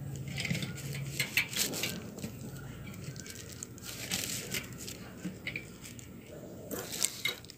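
Aluminium wire being threaded and pulled through the wire spokes of a metal fan guard, scraping, rustling and clicking against the metal, with a few sharp ticks about seven seconds in.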